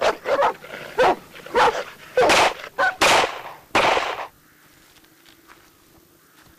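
Kuvasz dogs barking: about seven loud barks in quick succession, which stop suddenly about four seconds in.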